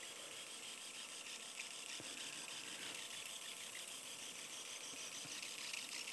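Faint steady hiss of fluid drawn through a 5.5 mm Dyonics bone-cutter arthroscopic shaver on suction as it cuts into a sawbone ankle model, with a few faint clicks.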